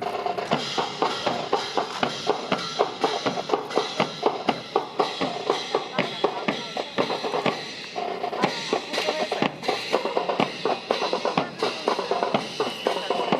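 Marching band music played on outdoor drums, snare and bass drum keeping a steady march beat under held band tones, with a brief dip about eight seconds in.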